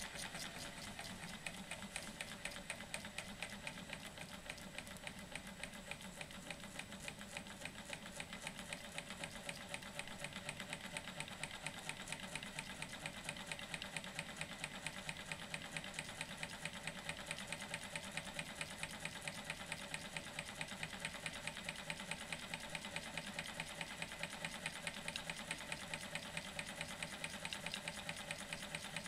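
Small wooden Stirling hot-air engine running, its moving parts clicking in a fast, even rhythm that starts suddenly with a knock and keeps a steady pace.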